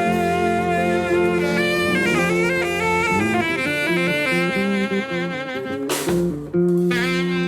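A live band playing a tune: a sustained melody line over held bass notes, with two strong accented hits near the end.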